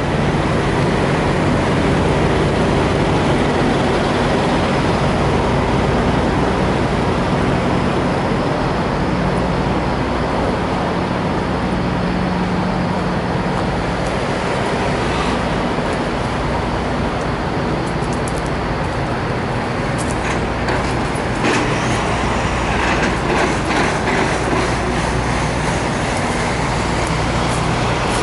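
Diesel engines of parked semi trucks idling together: a steady low hum with several held engine tones under a wash of noise.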